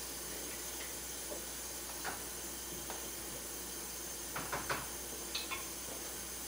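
Faint rustles and a few soft taps of hands pressing a piece of steak into flour in a ceramic bowl, dredging it for chicken fried steak, most of them a little past the middle, over a steady hiss.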